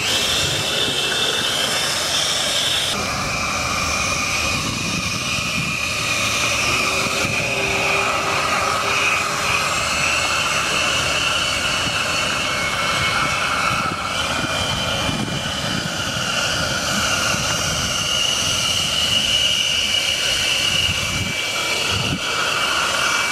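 The electric fan motor of a homemade RC jet boat runs with a steady high whine and the rush of its ducted fan. The pitch shifts up and down a few times as the throttle changes. Water sprays from the jet.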